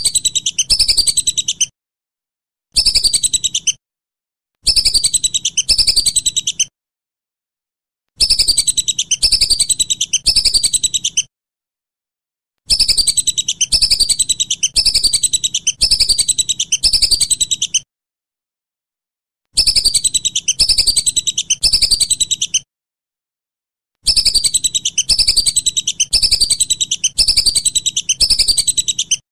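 Whistling duck (belibis) giving its high, clear whistled call: runs of repeated falling whistle notes, in bursts of one to five seconds with short silent pauses between.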